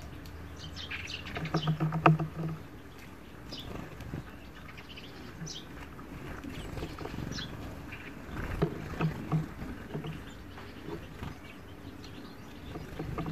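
A European goldfinch feeding at a bowl of sunflower seeds: small clicks and knocks as seeds and husks are picked and cracked, with a cluster of knocks about two seconds in and another near nine seconds. Faint bird chirps come in now and then.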